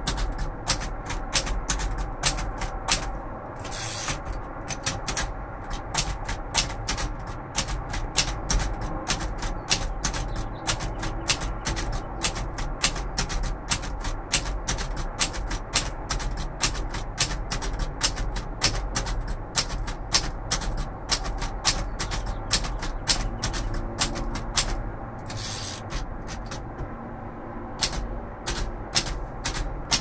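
1942 Royal Arrow portable typewriter being typed on: a steady run of key strikes, the typebars clacking against the platen about three times a second, with a couple of brief pauses, about four seconds in and again near the end.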